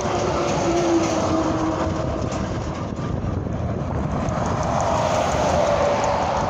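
Highway traffic roar from tractor-trailers passing at speed, a steady noise of tyres and diesel engines.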